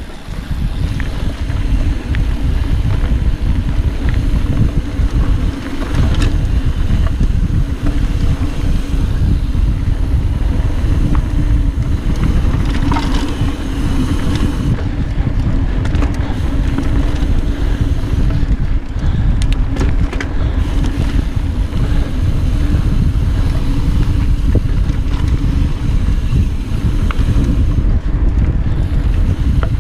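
Wind buffeting the microphone of a chest-mounted action camera on a fast mountain-bike descent: a loud, steady low rumble, with mountain-bike tyres rolling over the dirt trail and scattered clicks and rattles.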